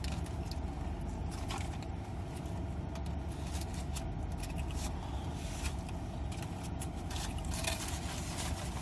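Steady low rumble of a car cabin with the engine running, with light scraping and handling of food packaging.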